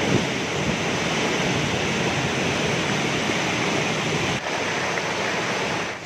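Steady rushing of a large waterfall in spate and the fast, shallow river water tumbling over rocks below it.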